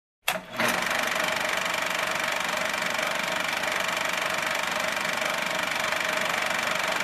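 A steady mechanical whir with a fast, fine rattle and a steady high whine, starting with a click a fraction of a second in and running unchanged.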